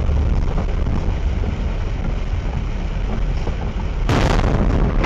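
Steady low rumble of a vehicle driving on a wet road in rain. About four seconds in comes a sudden loud crash lasting about a second, as it hits a lorry that has cut across in front of it.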